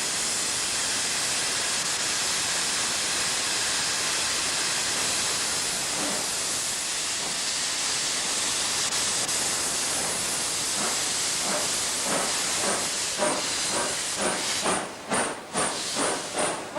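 Loud steady hiss of venting at a train, which in the last few seconds breaks into a quick pulsing rhythm that grows faster and stronger.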